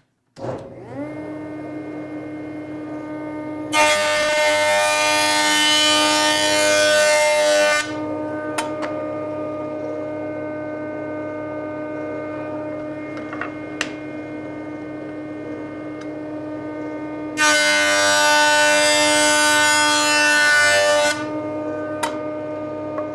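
Jointer starting up with a rising whine about half a second in, then running steadily with a hum. A rough-sawn walnut board is face-jointed in two passes, each about four seconds of loud planing noise as the cutterhead cuts the wood. A few sharp clicks fall between the passes.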